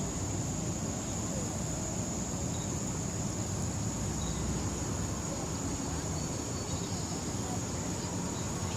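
Steady, high-pitched chorus of insects from the forest, one unbroken shrill tone, over a low, even rumbling noise.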